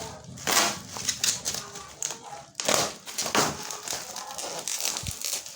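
Packaging being handled and unwrapped: crinkling and rustling in irregular bursts, with a few light clicks.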